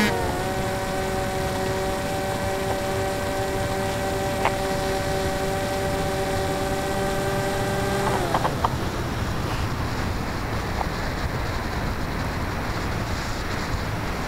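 Electric motor and propeller of an EasyStar model plane (Turnigy 2835 2700kv brushless) whining steadily as the throttle is eased back on a landing approach; the whine drops in pitch at the start, then cuts off about eight seconds in. A few light knocks follow, then a steady rush of air noise on the onboard microphone as the plane comes down.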